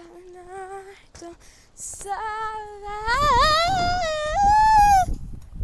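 A girl humming a wordless tune. A short held note comes first; then, from about two seconds in, a longer wavering line glides up and down and jumps higher near the end. Wind rumbles on the microphone underneath.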